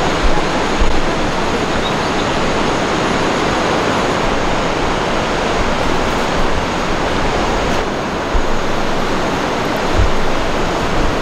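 Waterfall in brown, muddy flood, rushing in a steady, unbroken wash of falling water. A few brief low bumps come near the start and twice near the end.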